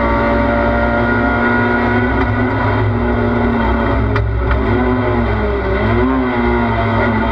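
Race car engine heard from inside the cockpit, running at steady high revs. About four seconds in there is a brief knock, and the engine note dips, then wavers up and down in pitch through the corner.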